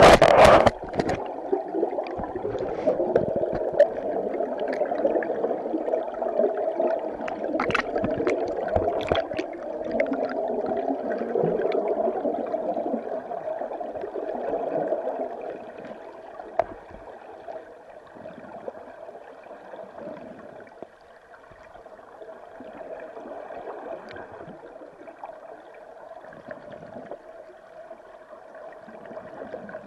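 River current recorded underwater: a steady, muffled rushing and gurgling of flowing water. There is a loud knock right at the start and a few faint clicks about eight seconds in, and the flow grows quieter about halfway through.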